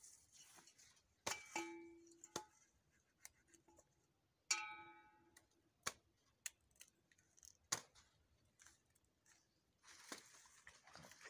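Hands plucking a hen in a steel basin: faint scattered clicks and knocks, two of which set the metal basin ringing briefly, about a second in and again about four and a half seconds in. Near the end comes a soft rustle of feathers being pulled.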